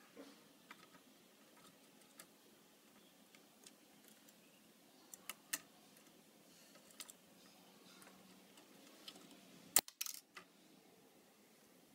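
Faint scattered clicks and taps of plastic toy bricks being handled as fingers move a small cannon piece, with one sharper, louder click about ten seconds in followed by a short clatter.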